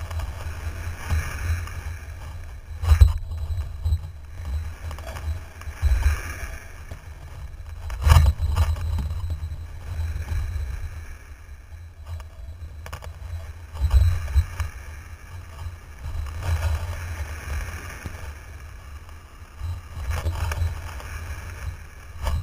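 Wind buffeting the microphone of an action camera mounted on a windsurfing rig, a heavy low rumble, with the hiss of water rushing past the board that swells and fades. Several sharp thumps come as the board slaps over the chop.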